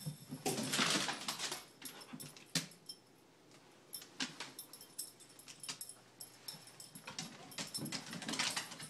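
Two dogs playing together: scuffling, with sharp irregular clicks like claws on a hardwood floor and short dog noises, loudest about a second in and again near the end.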